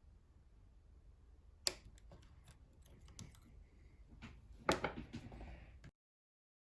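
Small metallic clicks and taps from handling a Zeiss Ikon WSW side-pin lock cylinder and its tools at close range. There is a sharp click just under two seconds in and a louder cluster of clicks near five seconds in. The sound then cuts off abruptly.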